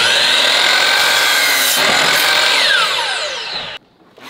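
DeWalt miter saw starting up with a rising whine and cutting through a wooden board, then winding down with a falling whine. The sound cuts off suddenly near the end.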